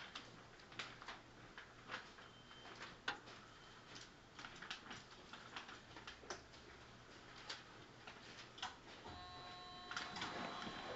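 Stationary JR 211 series 5000 electric train standing with its doors open: a faint low hum with irregular light clicks and ticks. About nine seconds in, steady electronic tones begin.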